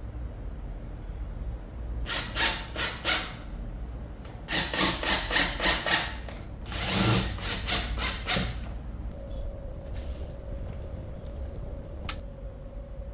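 Wood being sanded by hand, sandpaper rubbed back and forth in quick strokes, in several bursts. A faint steady hum starts about two thirds of the way in, with a single click near the end.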